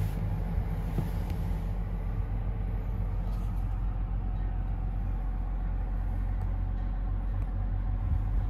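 The Chevrolet Tahoe's 3.0-litre Duramax turbo-diesel inline-six idles in Park, heard from inside the cabin as a steady low rumble and hum.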